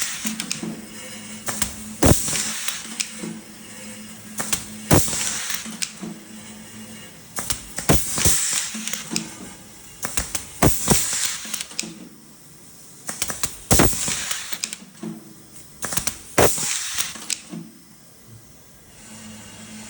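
Automatic-feed blind rivet gun setting rivets one after another, about every three seconds: a sharp snap as each rivet is set, followed by a short hiss. A steady low hum runs underneath.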